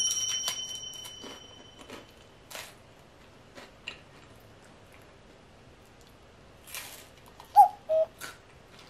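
Crunching and chewing of a tamasen, a crisp shrimp senbei cracker topped with fried egg and sauce, in a few sharp bites between quiet stretches. A high ringing tone fades out over the first two seconds, and two short pitched blips come near the end.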